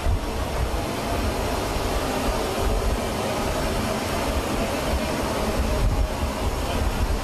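Steady low vehicle-engine rumble with an even hiss over it and no distinct knocks or changes.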